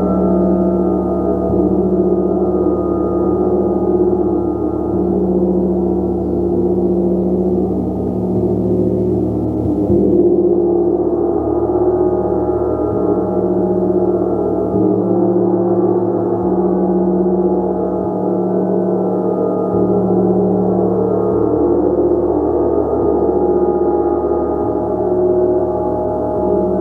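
A gong played continuously with soft repeated strokes, building a dense, sustained wash of many overlapping tones. The shimmer swells and shifts gradually, with no single loud strike standing out.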